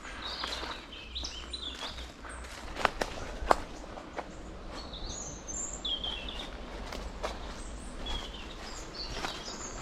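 Small birds chirping in a forest, with occasional footsteps and sharp snaps on the forest floor.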